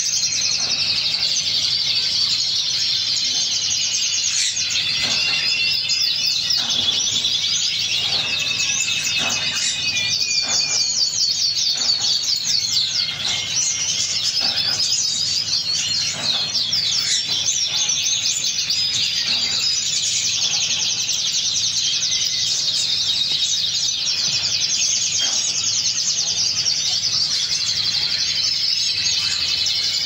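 Phaeo canary singing a long, unbroken song of fast trills and rapid repeated notes.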